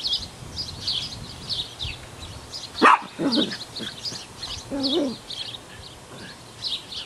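Small dogs barking: one sharp bark about three seconds in, then two short hooting woofs, over continuous chirping of songbirds.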